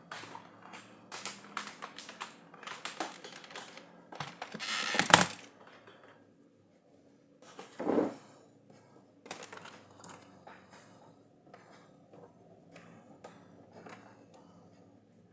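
Objects and cables being handled on a workbench: irregular clicks and knocks, a louder scraping rustle about five seconds in, a dull thump around eight seconds, then scattered fainter clicks.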